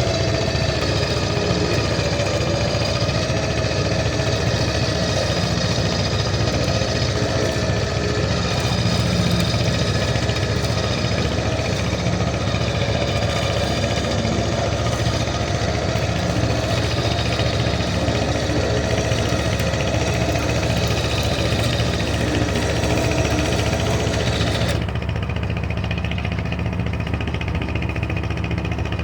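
An engine running steadily at idle. About four seconds before the end the sound turns abruptly duller, its upper part dropping away.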